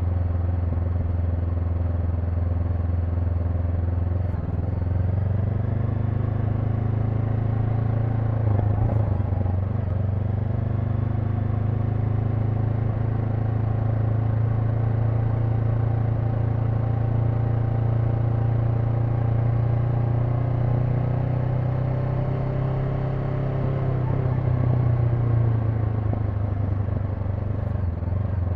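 Honda NX500's parallel-twin engine running steadily on the move. Its pitch steps up about four seconds in, shifts again near nine seconds, and dips near the end.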